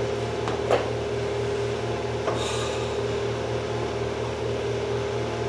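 A steady machine hum, with two short sharp knocks, the louder one under a second in and a smaller one about a second and a half later.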